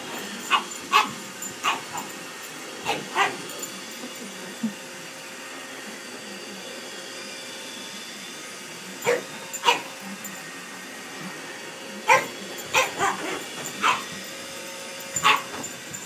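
Pug barking in short bursts over the steady whir of a running Roomba robot vacuum: several barks in the first few seconds, two about nine seconds in, then a quick run of barks from about twelve to fourteen seconds and a few more near the end.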